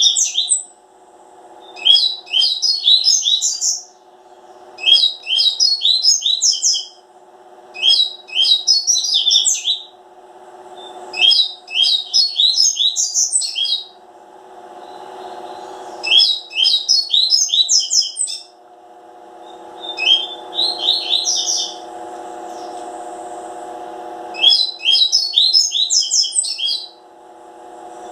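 A double-collared seedeater (coleiro) singing repeated phrases of rapid, high, chirping notes, each phrase about two seconds long with short pauses between. A steady low hum runs underneath.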